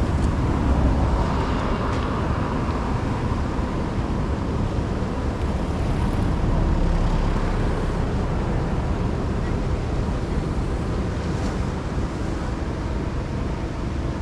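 Steady low engine rumble of a moving craft, with wind noise on the microphone.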